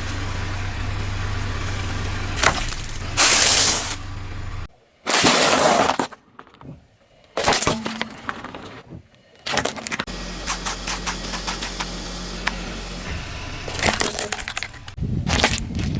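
Objects being crushed under a car's tyre: a series of short cracking and breaking crunches, cut together from separate takes, with the car's engine running low underneath in some of them.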